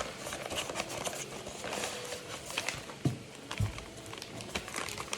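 Hands handling packaging: light rustling and scattered small clicks, with two soft dull thumps a little past three seconds in.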